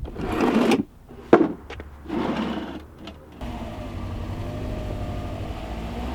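A few rustling bursts and one sharp knock, then a Subaru STI's turbocharged flat-four, still on its stock exhaust, running steadily from about three and a half seconds in.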